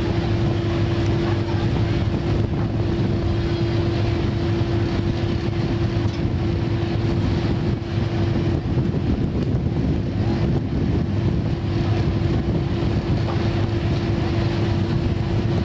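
Boat engine running at a steady speed, a constant unchanging hum with a rushing noise over it.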